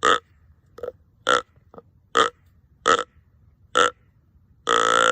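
Handmade Nature's Voice deer grunt call being blown: a run of short, burp-like grunts spaced under a second apart, then a long drawn-out note near the end, used to call in a buck.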